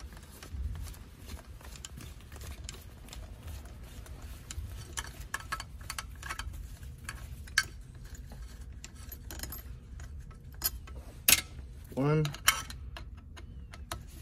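Steel hex key working the small 3/16 hex screws on a vacuum pump's cam lobe: scattered light metallic clicks and taps as the key is seated, turned and shifted against the screw heads and metal housing.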